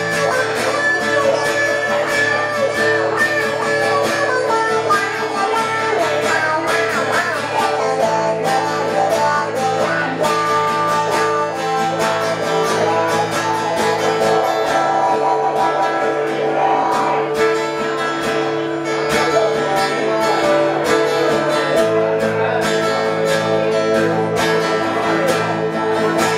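Two guitars played live together, strummed and picked through an instrumental passage with no vocals.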